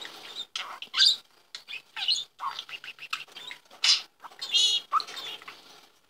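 Budgerigar chattering at a toy figure it is fixated on, in short chirps, squeaks and clicks, with a brief warbled phrase about four and a half seconds in.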